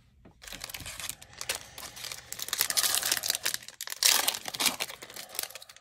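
Foil wrapper of a Magic: The Gathering collector booster pack crinkling and crackling in the hands. The crackles come in dense flurries, loudest around the middle and again about four seconds in.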